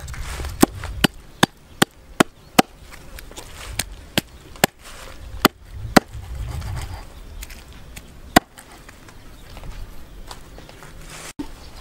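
Cleaver chopping through a snake onto a round wooden chopping block: about a dozen sharp knocks, several a second for the first few seconds, then more spread out, the last about eight seconds in.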